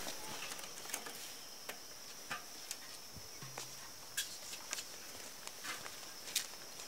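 Light footsteps in sandals on a packed-dirt yard: faint, irregular clicks about one or two a second, over a steady faint high-pitched background whine.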